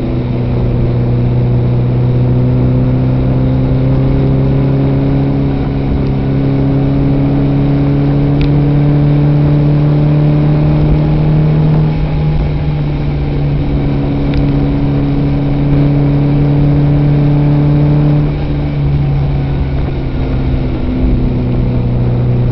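Fiat 850 Spider's rear-mounted four-cylinder engine pulling along the road, heard from inside the open car. Its note climbs slowly, drops about halfway through and again near the end, then climbs again.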